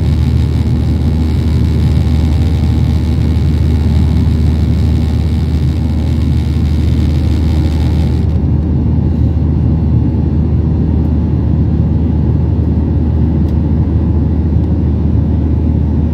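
Boeing 737-800 cabin noise: a steady low engine rumble with an airy hiss on top, and the hiss cuts off suddenly a little past halfway.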